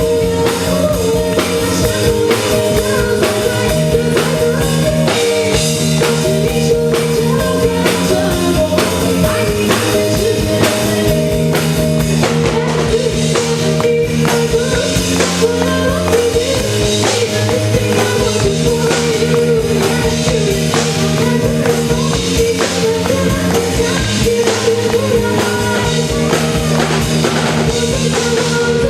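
Live rock band playing a song: a drum kit keeping a busy, steady beat under sustained bass and keyboard lines.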